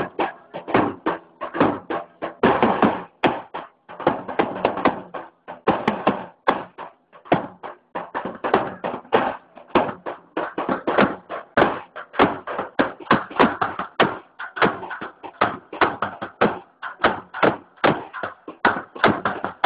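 Loud, fast rhythmic drum beats, about three or four strikes a second, keeping time for a folk dance.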